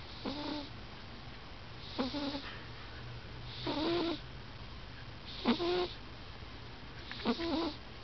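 A sleeping cat snoring loudly: five short snores, one about every second and three-quarters, each a brief rasp with a tone in it.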